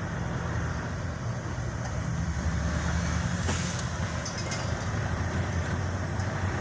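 Engine of a large vehicle running steadily while it drives in traffic, heard from inside the cab, with a short hiss about three and a half seconds in.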